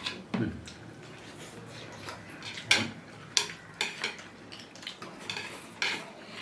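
Eating utensils clinking against dishes during a meal: a dozen or so light, irregular clicks.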